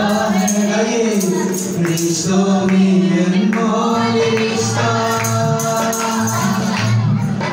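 A man singing a slow melody into a microphone over a musical accompaniment of percussion and low bass notes.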